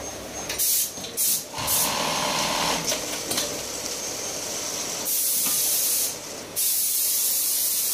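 Industrial sewing machine with a tape binder attachment stitching the underwire channel cover onto a bra, running in several starts and stops with a high, hissing whir; the longer runs come in the second half.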